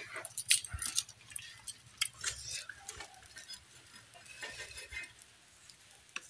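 Scattered soft clicks, light clinks and rustles of fingers tearing and picking up rice pitha and fried vegetables from a steel plate.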